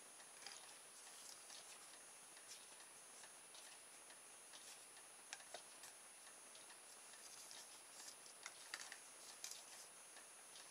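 Near silence with faint, irregular light clicks and ticks from plastic drinking straws being handled and fitted together, more of them in the second half.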